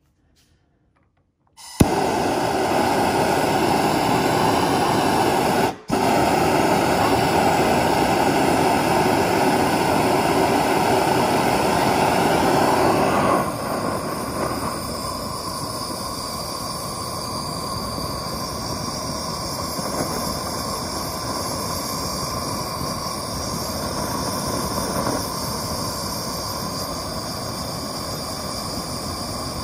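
Handheld gas torch lit with a sudden start a couple of seconds in, then the steady hiss of its flame, cutting out for an instant soon after. From about halfway the sound changes and drops a little as the flame fires into a small can lined with a heat-shield paste.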